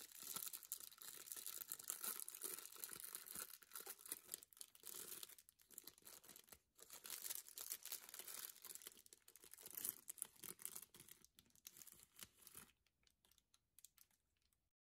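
Thin clear plastic snack-cake wrapper crinkling and tearing as it is pulled open by hand, in a run of irregular rustles that thin out and fade near the end.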